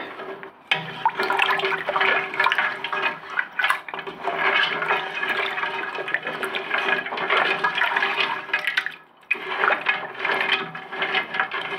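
A wooden spoon stirring and sloshing thin broth with bony pieces of meat in an aluminium pressure cooker, with a brief pause about nine seconds in. This is the check that the trotters have cooked soft.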